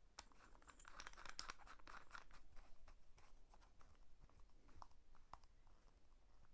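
Faint handling of a mobile phone being fitted into the plastic clamp of a chest-harness phone mount: a rustling scrape about a second in, then scattered small clicks.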